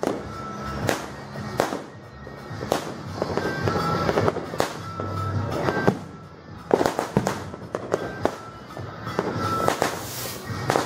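Fireworks and firecrackers going off in irregular bangs and crackles, with a dense cluster of bursts about seven seconds in. Music plays underneath.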